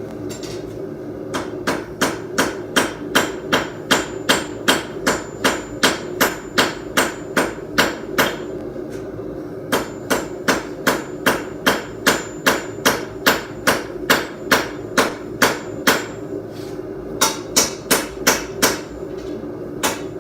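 Hand hammer striking hot high-carbon steel on an anvil, about three blows a second in long runs broken by two short pauses, each blow with a bright ring. A steady low hum runs underneath.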